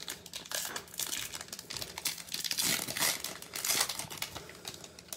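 Crinkly plastic wrapper of a baseball card pack crackling as it is torn open and the stack of cards pulled out, a dense run of irregular crinkles.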